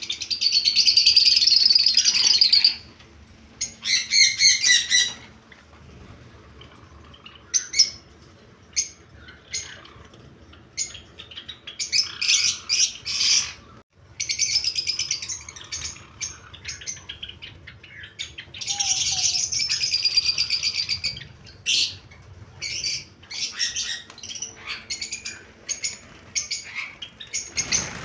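Caged Java sparrows chirping and chattering, in bursts of rapid trilling calls a second or two long, with scattered single chirps between them.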